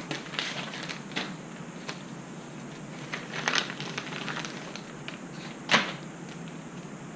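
Small parts and plastic packaging being handled: light rustling and crinkling with scattered clicks, a short cluster about halfway through and one sharp click near the end.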